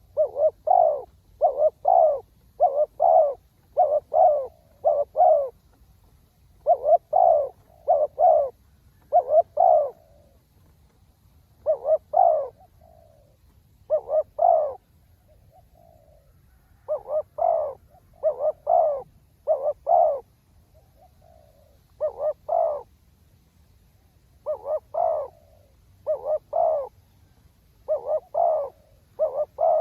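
Spotted dove cooing over and over, in phrases of two or three short coos with brief pauses between phrases.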